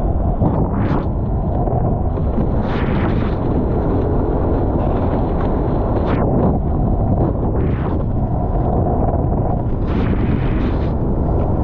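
Strong wind buffeting the microphone aboard a Formula 18 racing catamaran under sail, over a steady rush of water along the hull. Several short hissing surges of spray and wash break in, about 1, 3, 6, 8 and 10 seconds in.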